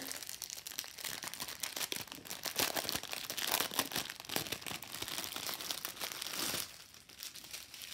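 Clear plastic packet of diamond-painting drill bags crinkling as it is handled and worked open by hand, a dense crackle that is heaviest in the middle and thins out near the end.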